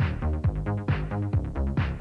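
Electronic music with a drum-machine beat: a kick drum with a falling pitch about twice a second and a sharp snare on every other beat, over steady synth bass notes.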